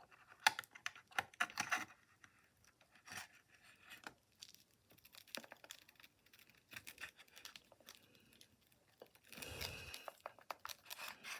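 A metal blade prying and scraping at the dial of an old plastic-cased transistor radio: a run of small sharp clicks and scratches, with a longer scratching stretch near the end.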